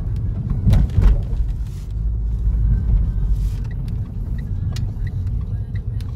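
Steady low rumble of a car on the move, with a couple of sharp clicks about a second in and scattered short faint high blips in the second half.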